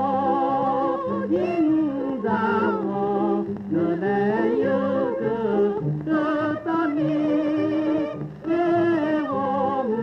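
Early Japanese popular song (ryūkō kouta) from a 1930 recording: an orchestra playing, with a sung melody with vibrato on top.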